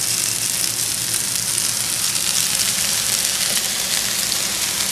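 Zucchini fritters sizzling in melted butter on a hot griddle pan as their second side cooks: a steady frying hiss with small crackles.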